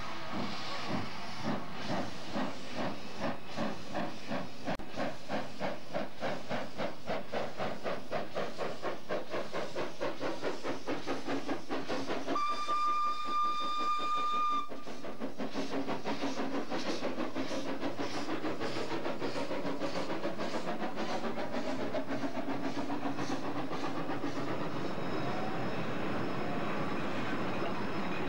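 Cockerill steam locomotive pulling away with its train: the exhaust chuffs quicken steadily, a single steam whistle blast of about two seconds sounds midway, then the carriages roll past with a continuous rumble and clatter on the rails.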